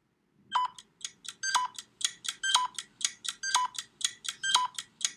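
Countdown-timer sound effect: short electronic ticks about five a second, with a stronger beep marking each second, over a faint low hum.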